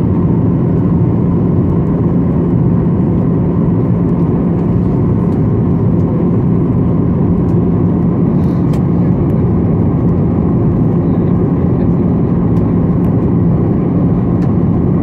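Steady cabin noise inside a Boeing 737-800 in flight on descent, from its CFM56-7B turbofan engine just outside the window and the airflow over the fuselage, with a steady low hum under it.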